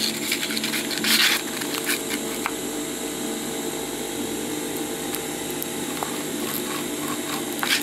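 A pen and a clear plastic stencil being handled over coated bag fabric while a curved corner is traced, with a short scraping rustle about a second in. A steady low hum runs underneath.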